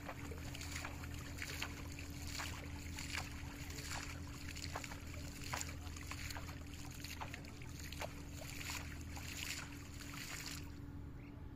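Water splashing and sloshing in quick, irregular strokes as a fishing net is swished and shaken in shallow pond water. The splashing stops near the end, and a steady low hum runs underneath throughout.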